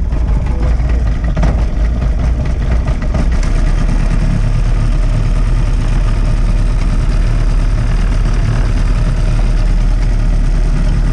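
Mariner outboard motor idling steadily, a low, even rumble.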